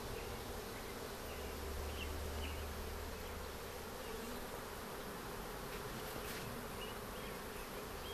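A cluster of honey bees from a swarm buzzing with a steady hum as a bare hand moves among them.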